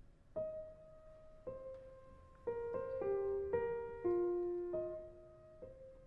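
Background music: a slow, gentle piano melody of single notes and soft chords, each note struck and left to ring.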